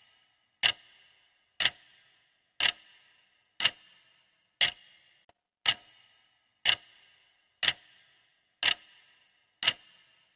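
Clock ticking steadily, one sharp tick a second, each with a brief ringing tail: the ticking of a countdown timer.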